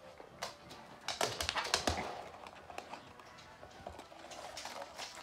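A Samoyed puppy playing with plastic toys on a hard floor: a run of sharp clicks and clattering taps, loudest and densest about a second in, then sparser ticks.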